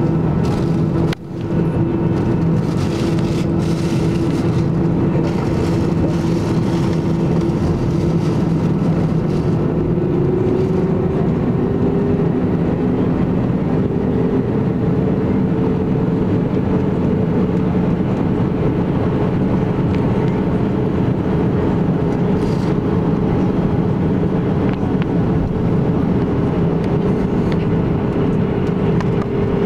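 Airbus A320's jet engines heard from inside the cabin while the airliner taxis: a steady, loud cabin hum with a low drone, its pitch rising a little partway through as the engines spool up slightly. A brief dropout in the sound about a second in.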